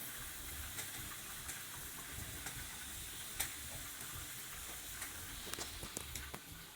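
Stovetop cooking: a faint, steady sizzle with scattered light clicks of a spoon stirring a pot of polenta.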